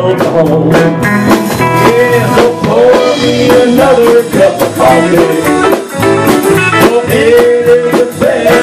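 Live country band playing an instrumental break between sung lines: a lead guitar holds and bends notes over a steady drum beat.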